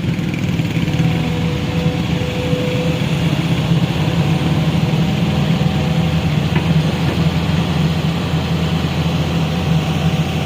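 A motor vehicle's engine running steadily at an even speed, a constant low hum with no revving.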